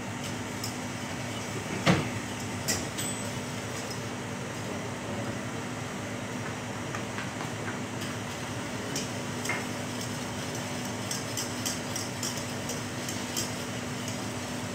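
Wire whisk stirring sugar and water in a stainless-steel saucepan, with light clinks of the wires against the pan and one sharper knock about two seconds in, over a steady low hum.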